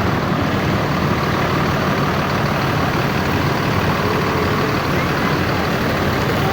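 Large diesel tour-bus engines idling, a steady continuous rumble with no horn sounding.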